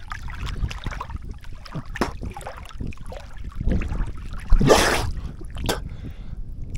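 Water splashing as a crayfish trap is handled in the river, with wind rumbling on the microphone. A louder splash comes about four and a half seconds in, and a shorter one just after.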